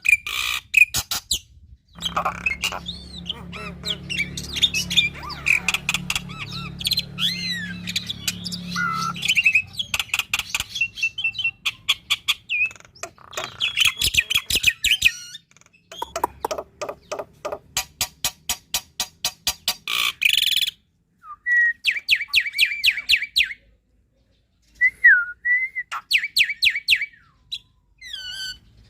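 Black-winged myna (jalak putih) in full, varied song: fast rattling chatter of about seven clicks a second, harsh squawks and whistled rising and falling notes. Several phrases break off abruptly, with a few short silences.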